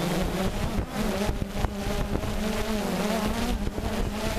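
DJI Phantom 2 quadcopter's electric motors and propellers buzzing in flight, a steady hum whose pitch wavers slightly as the motors adjust speed.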